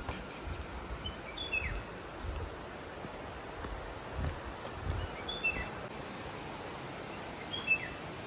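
A bird giving three short, high chirps that fall in pitch, a few seconds apart, over steady outdoor background hiss. Soft, low thumps of footsteps walking down stone steps sound under the first half.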